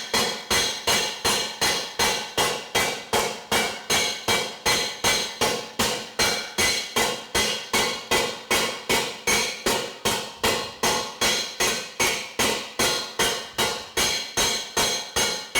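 Heavy hardened spring-steel slapper striking a heavy steel panel, about three even blows a second, each a sharp metallic slap that dies away quickly. The slapper is planishing the panel, knocking down high spots to smooth its contours.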